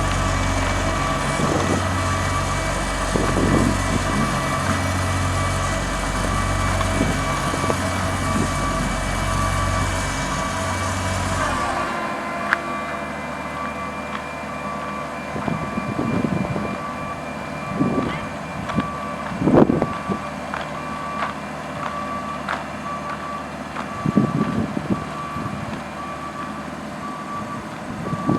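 Road roller machinery at work on asphalt paving: a reversing alarm beeps steadily over diesel engine noise. A deep, pulsing low rumble cuts off about twelve seconds in, after which occasional knocks and clanks stand out.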